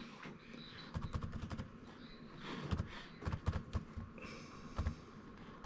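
Quiet clicking of laptop keys pressed one at a time on a Lenovo IdeaPad 330's replacement keyboard, as the number-pad keys are tapped in turn. The clicks come in three short runs.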